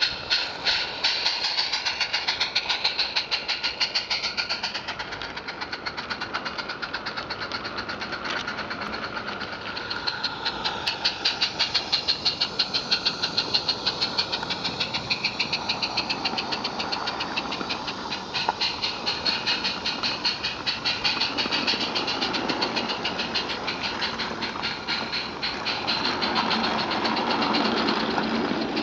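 Small live-steam garden-railway locomotive chuffing in rapid, even exhaust beats as it hauls a train of bogie wagons. Near the end a louder rolling rumble and wheel clatter comes in as the wagons run past close by.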